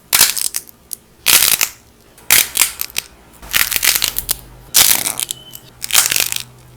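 Dried clay being cracked and crushed in short crackly bursts, about six of them, roughly one a second.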